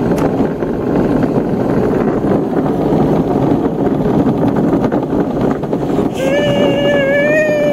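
Luge cart rolling fast down an asphalt track: a steady rumble from the wheels on the road mixed with wind on the microphone. Near the end a long, wavering high-pitched voice call lasts about two seconds.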